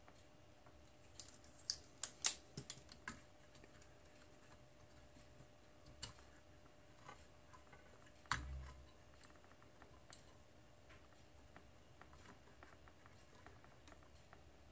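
Small, sharp clicks and taps from handling wire leads with crimp connectors and a felt-tip marker, with a quick run of louder clicks about two seconds in and a single dull thump a little past eight seconds.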